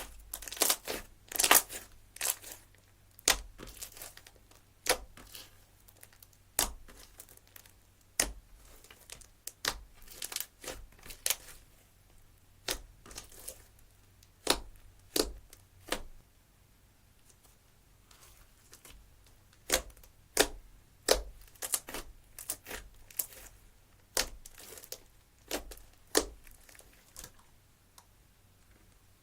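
Slime being squished and pulled by hand, giving irregular sharp clicks and pops, sometimes several in quick succession, with a short lull partway through.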